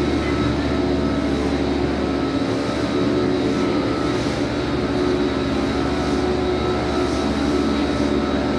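An engine running steadily: a constant drone with several held tones over a rushing noise.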